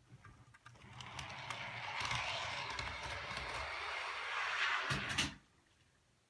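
HO-scale model train rolling along the track, a rushing wheel-and-motor noise with a low rumble that builds up, then stops abruptly with a few clicks about five seconds in.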